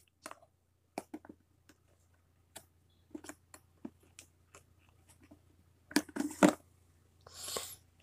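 Plastic clicks and knocks as the dustbin of a Eufy robot vacuum is unlatched and pulled out of the back of the switched-off robot, with a cluster of louder clicks about six seconds in.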